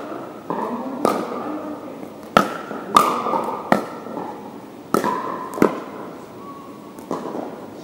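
Pickleball paddles hitting a plastic pickleball in a rally: about seven sharp pops at uneven intervals, each echoing in a large gym hall.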